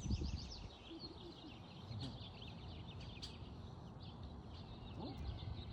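Small songbirds chirping in quick repeated trills, faint, over a low rumble.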